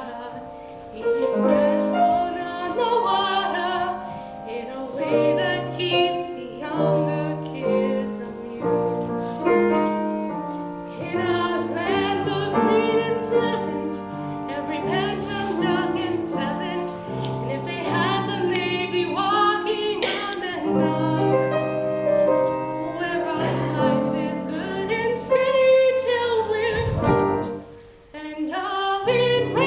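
Singing with piano accompaniment, with a brief pause near the end.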